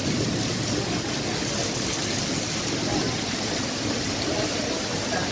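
Heavy rain falling steadily on a street, an even rushing hiss of water. A low thunder rumble dies away in the first moment.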